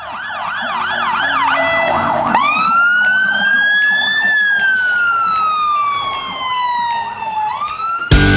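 Fire engine siren. It starts on a fast warbling yelp, then about two seconds in switches to a slow wail that rises, falls slowly and begins to rise again. Loud music cuts in at the very end.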